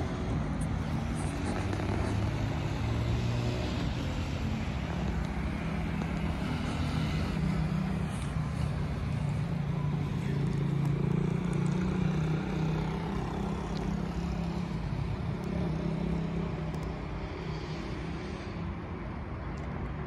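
Road traffic: car engines running with a low, steady hum over a rush of road noise, swelling a little midway and easing toward the end.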